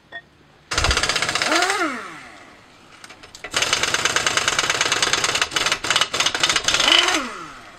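Power impact wrench hammering in two bursts, about a second and a half and then nearly four seconds long, each ending with a short whine that rises and falls as the tool lets off.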